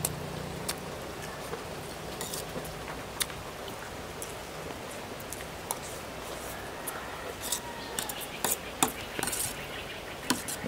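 Dishes and utensils clinking and clicking as people eat, scattered taps at first and a quicker cluster of sharper clinks about eight to ten seconds in, over a steady background hiss.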